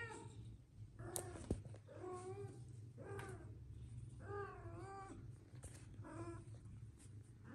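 A cat meowing repeatedly: about five drawn-out, wavering meows, roughly one a second. A sharp click comes about a second and a half in, over a steady low hum.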